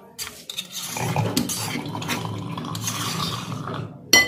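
Metal spoon scraping ground paste out of a stone mortar: a steady scraping that starts about a second in and lasts nearly three seconds. Near the end come a few sharp, ringing clinks of the spoon knocking against a glass bowl.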